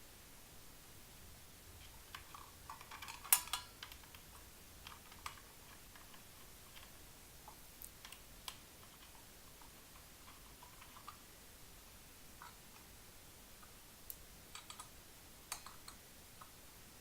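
Blade being fitted onto a Ryobi One+ 18V cordless circular saw: sparse light clicks and knocks of metal parts, with one louder, ringing metallic clink about three seconds in.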